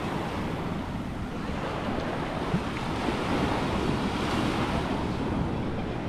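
Small Atlantic Ocean surf breaking and washing foam up the sand at the water's edge, a steady wash that swells a little midway, with wind rumbling on the microphone.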